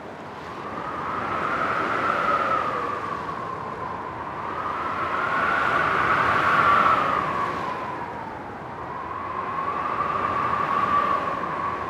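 Wind sound effect: light wind blowing, an airy hiss with a whistling tone that swells and fades three times in slow gusts.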